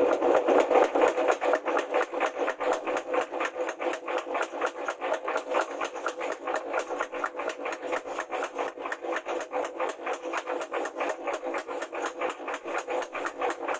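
Mechanical power hammer pounding a red-hot steel machete blade, forged from an old bearing, with rapid, evenly spaced blows several times a second.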